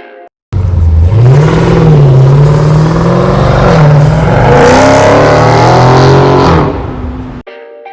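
Car engine revving several times, its pitch climbing and falling back between blips. It starts abruptly and cuts off suddenly near the end.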